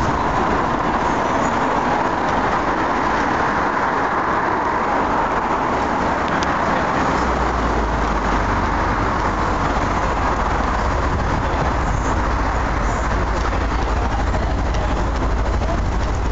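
Steady outdoor background noise with no distinct events, and a low rumble that joins about seven seconds in.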